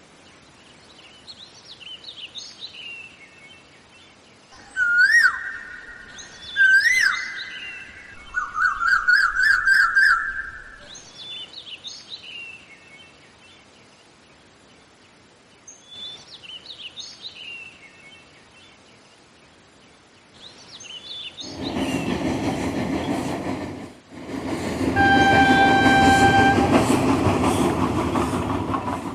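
Birds chirping and calling on and off, with several loud whistled glides and a warbling trill in the first ten seconds. Then a train runs past with a rising rumble from about two-thirds of the way in, and its horn sounds one long steady note near the end.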